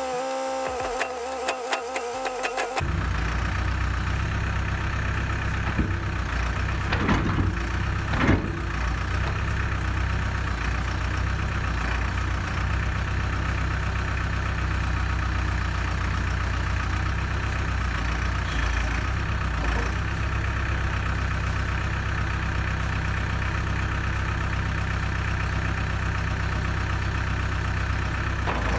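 Brief background music, then a sudden switch to the 2001 New Holland LB75B backhoe's diesel engine idling steadily, shortly after a cold start. A couple of short knocks come about seven and eight seconds in.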